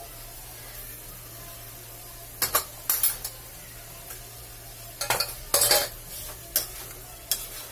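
A spoon scraping and clanking against a kadhai as vegetables cooking in oil are stirred, in short irregular clusters of strokes, over a faint steady sizzle.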